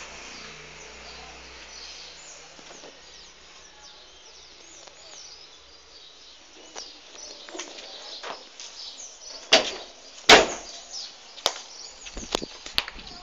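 A car engine's low running sound fades out in the first two seconds, with birds chirping in the background. Then come several sharp knocks, the loudest about ten seconds in.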